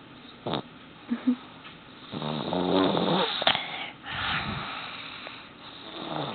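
Snoring in sleep: a long buzzing snore about two seconds in, then a breathy exhale, with short snorts near the start and the end.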